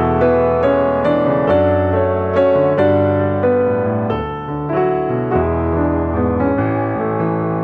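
Background piano music, a slow, gentle tune of chords and single notes.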